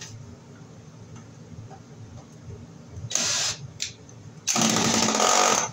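Ryobi cordless drill/driver running in two bursts, a short one about three seconds in and a longer one of about a second near the end, driving home the screw that holds the ground wire loop.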